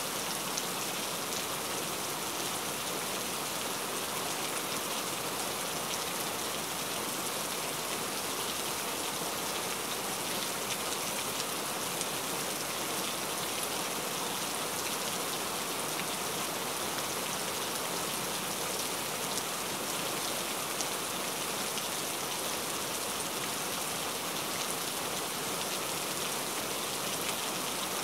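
Steady rain falling, an even hiss with many small drop hits.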